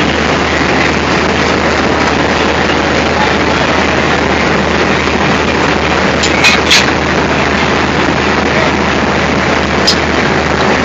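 Diesel locomotive running, a loud steady rumble with a constant low hum, with a few short sharp clicks about six and a half seconds in and again near the end.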